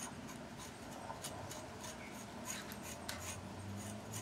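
A blade scraping the outer bark off a freshly cut cinnamon branch: short, dry scraping strokes at an irregular two or three a second.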